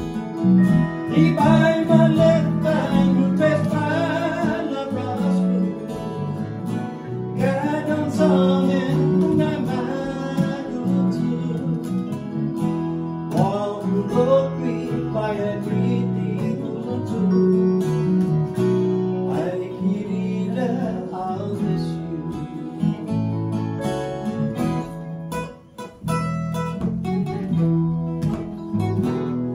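Small band jamming live: acoustic guitar, electric bass, electric keyboard and electric guitar playing a song together. The playing briefly drops away about 25 seconds in, then carries on.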